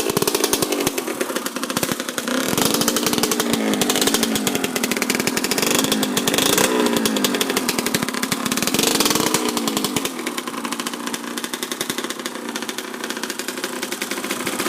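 1993 Kawasaki KX125's two-stroke single-cylinder engine running on a break-in heat cycle. It is revved up and down about three times, then settles to a steadier idle about ten seconds in. The idle is not yet fully crisp: the jetting still needs adjusting.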